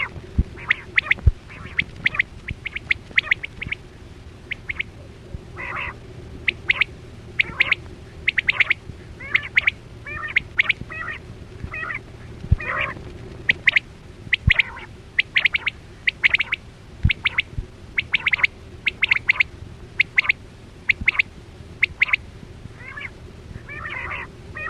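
Quail calling over and over: short, sharp notes, often in quick groups of two or three, repeated continuously over a steady low hum.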